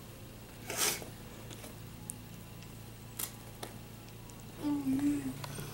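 Italian greyhounds playing with plush monkey toys on carpet: a rustle of toy and fur about a second in and scattered light clicks, over a steady low hum, with a short low vocal sound near the end.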